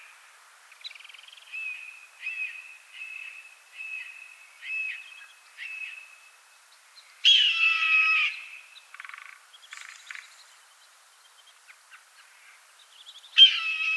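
Red-tailed hawk screaming twice: a loud, harsh, falling screech about seven seconds in and another near the end. Before them comes a run of short notes at one steady pitch, repeating about every two-thirds of a second.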